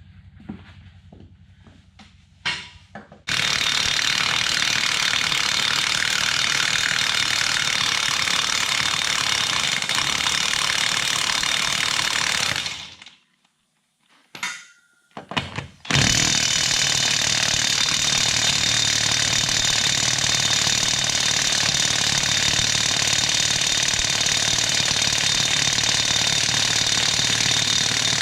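Cordless DeWalt impact wrench hammering on a left-hand-thread lug nut of a truck's front wheel, trying to break it loose. It runs steadily for about ten seconds, stops, gives two brief blips, then hammers again steadily for the last twelve seconds. A few soft clicks of handling come before it starts.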